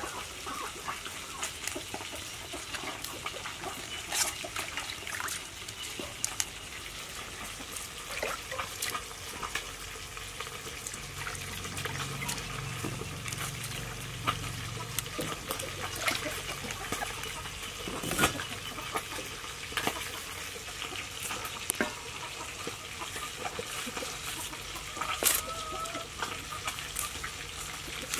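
Water sloshing and trickling in a metal basin, with scattered sharp clicks and knocks from handling.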